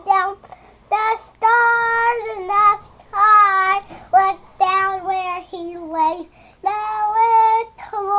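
Young boy singing in drawn-out, wavering held notes, broken into short phrases with brief pauses between them.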